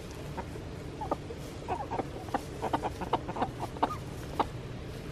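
A flock of chickens, hens and roosters, clucking softly as they forage, with many short clucks scattered throughout.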